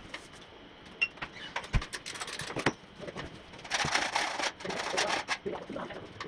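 Aerosol spray paint can hissing: a brief spurt about two seconds in, then a longer spray of about a second and a half. Scattered light clicks and knocks come between the spurts.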